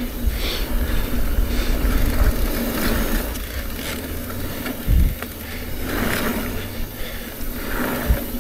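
Electric mountain bike rolling fast down a dirt trail: a steady rumbling rush of tyres and wind on the action camera, with two heavy thumps, one about five seconds in and one near the end.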